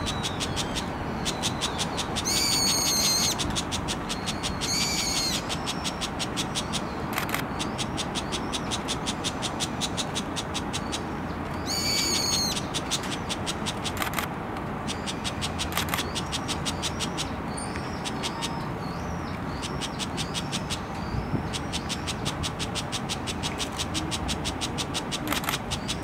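Juvenile brown shrike of the Philippine race calling three times, about 2, 5 and 12 seconds in; the first call lasts about a second. A fast, steady ticking runs underneath, and faint high chirps come near the end.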